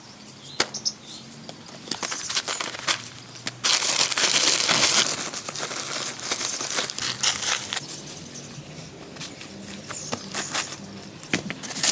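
Rustling and crackling with many sharp clicks, growing louder and hissier for about a second around four seconds in.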